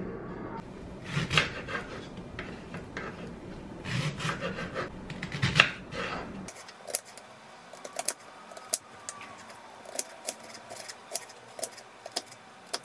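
Kitchen knife chopping an onion on a wooden cutting board: from about halfway in, a run of short, sharp knocks about two a second. Before that, a few louder knocks and rubbing sounds over a low hum.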